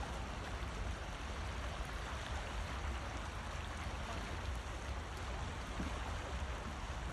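Steady rushing noise of small waves washing against a rocky sea shore, over a constant low rumble.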